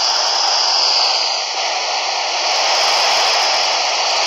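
Steady FM static hiss from a Kenwood dual-band handheld transceiver's speaker, tuned to the International Space Station's voice downlink: a gap in the transmission, with no voice coming through the noise.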